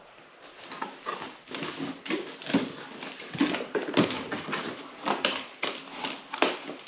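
Cardboard box being handled and opened by hand: a run of irregular scrapes, rustles and knocks from the cardboard, starting about half a second in.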